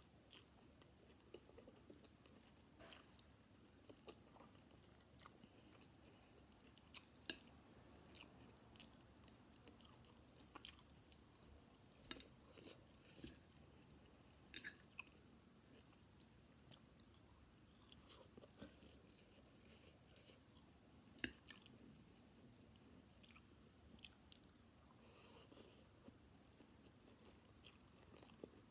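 Quiet close-up chewing and slurping of chicken chow mein noodles, with many short sharp clicks scattered throughout.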